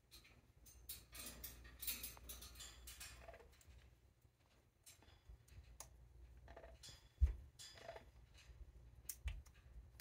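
An Amazon parrot's beak gnawing and clicking on a wooden chew-toy block, with dense crunching in the first few seconds and scattered clicks after. Two dull thumps come later on.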